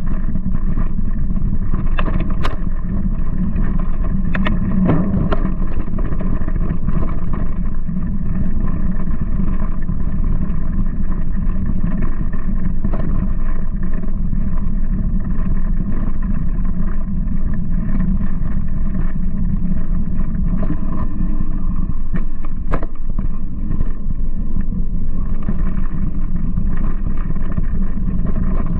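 Steady rumble and wind noise of a mountain bike rolling fast over a dirt trail, picked up by a camera mounted on the bike, with a few sharp knocks from bumps; the loudest come about two seconds in and about three quarters of the way through.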